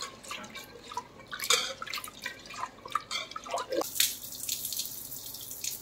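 Split lentils being rinsed by hand in water in an aluminium pressure cooker pot: irregular sloshing and splashing as the hand swishes the grains. About four seconds in, the cloudy rinse water is poured off in a steady stream.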